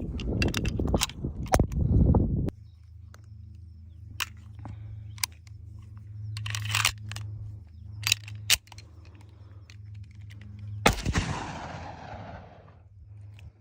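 Tokarev TT pistol (7.62×25 mm, "30 bore") fired several times in quick succession during the first two and a half seconds. After that come a steady low hum and a few isolated sharp clicks, then a loud crack about eleven seconds in with a long fading tail.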